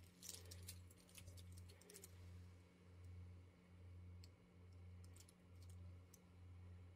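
Faint clicking and rattling of the hard plastic segments of an articulated 3D-printed dragon being flexed in the hand, densest in the first two seconds, with a few more clicks later on. Under it runs a low hum that swells and fades about once a second.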